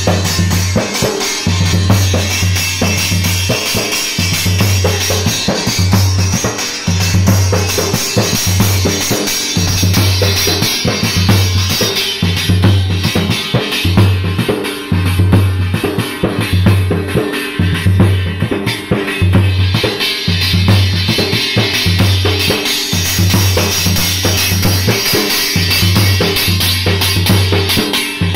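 Loud dance music: a dhol drum beaten in a steady rhythm over a deep bass note that repeats in even blocks.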